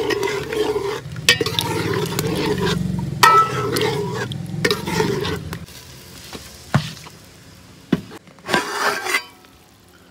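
A spoon stirring and scraping chicken curry as it sizzles in an aluminium pot, with a few sharp knocks against the pot. After about five and a half seconds the stirring stops, and there are a couple of sharp metal knocks and a short rattle as a lid is set on the pot.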